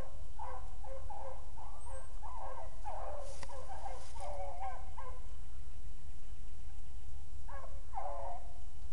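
Beagle hounds baying on a rabbit's trail: a run of overlapping yelps and bawls from some distance off, then a pause and a few more cries near the end, over a steady low rumble.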